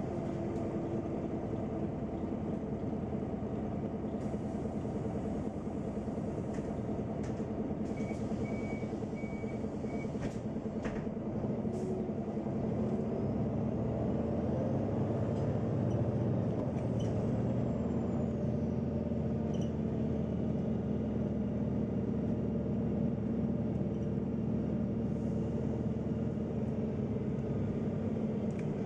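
Neoplan N 4416 Centroliner city bus heard from inside the cabin while driving: a steady engine and drivetrain hum with scattered rattles and clicks, growing a little louder about halfway through. A short run of beeps sounds about eight seconds in.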